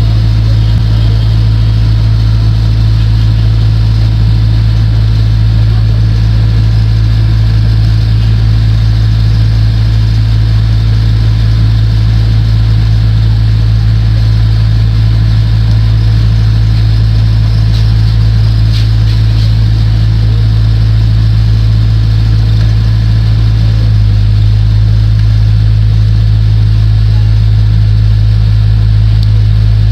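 A loud, steady low hum on one deep tone, unchanging throughout.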